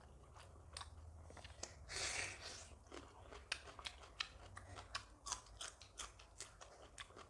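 Close-up chewing and crunching of a mouthful of food, with many small sharp crunching clicks, several a second, in the second half. There is a short breathy burst about two seconds in.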